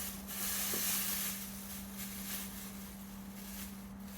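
Rustling and crinkling of shipping packaging and packing peanuts being handled, over a steady low electrical hum.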